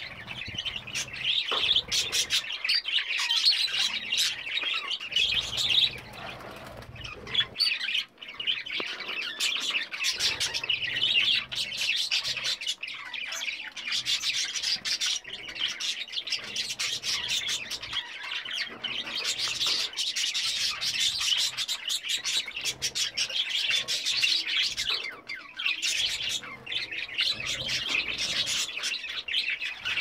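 Several budgerigars chirping and warbling in a continuous busy chatter, with a brief lull about six seconds in.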